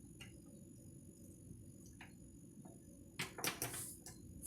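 Faint metal clicks, then near the end a quick run of light taps and scrapes, from a flathead screwdriver being worked against a transistor clip in a car amplifier.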